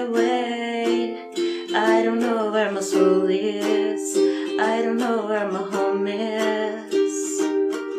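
Ukulele strummed in a steady rhythm, with a voice singing along in places.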